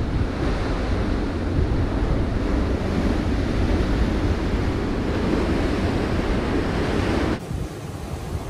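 Pacific Ocean surf washing over coastal rocks, with wind buffeting the microphone. The sound drops suddenly to a quieter level near the end.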